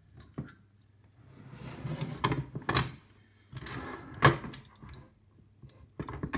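Handling noise from the hinged lid and body of a portable repeater's case being turned and laid open: rubbing and scraping, with several sharp knocks, the loudest about four seconds in.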